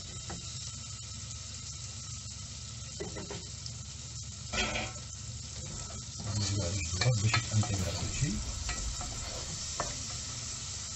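Wooden spoon stirring and scraping chopped tomato and green pepper in a metal pot on a gas stove. The vegetables and spices sizzle steadily, and louder bursts of stirring come about four and a half seconds in and again around six to seven seconds in.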